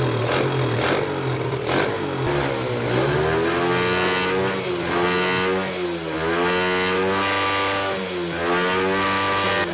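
Motorcycle engine being revved, its pitch climbing and dropping several times over the second half after a steadier, lower running at first.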